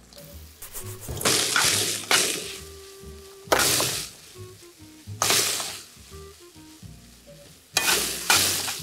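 Asparagus and chickpeas sizzling in a frying pan as they are stirred, the sizzle flaring up sharply every second or two and dying back between strokes. Quiet background music underneath.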